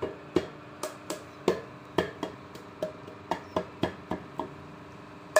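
Homemade balloon drum struck repeatedly with a homemade striker: about a dozen sharp hits at roughly three a second, each with a short ringing tone, stopping near the end.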